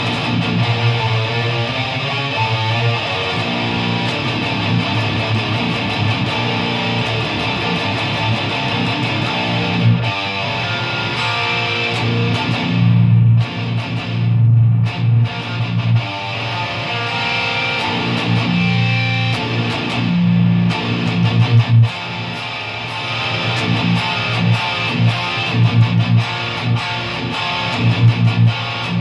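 Distorted electric guitar playing heavy deathcore riffs, low chugging notes with many sharp picked attacks and a few brief stops around the middle.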